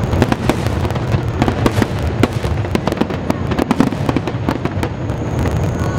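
Aerial fireworks shells bursting in quick succession: a dense run of sharp bangs and crackles, several a second, over a continuous low rumble.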